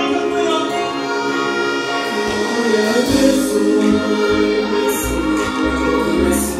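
Loud live concert music through a stage sound system: sustained chords, with a heavy bass beat starting about three seconds in.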